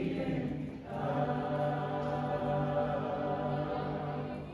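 A choir singing: a short phrase, then a long held chord that fades out near the end.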